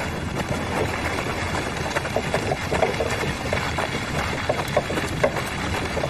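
Horse-drawn cart moving over snow: a steady crunching noise of hooves and cart wheels, with a few short faint tones between about two and five seconds in.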